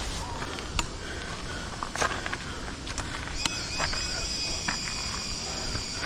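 Footsteps and scattered clicks and knocks along a forest trail over a low rumble. About halfway through, an insect starts a steady high buzz.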